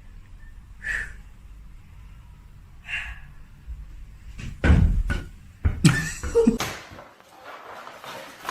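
A cluster of loud thumps and knocks about four and a half seconds in, followed by more sudden bangs and clatter.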